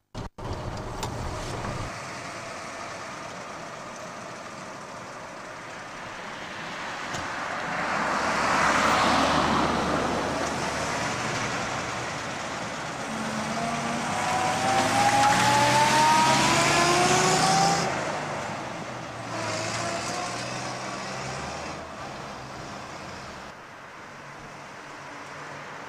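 1927 Rolls-Royce 20 HP's six-cylinder engine and running gear as the car drives by on the road. The sound swells as the car nears and passes. In the middle, a whine rises steadily in pitch as the car gathers speed, then stops abruptly.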